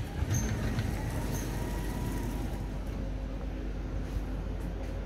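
Berlin U-Bahn train standing at the platform with its doors open, its equipment humming steadily under a low, uneven rumble of wind on the microphone, with a few faint clicks.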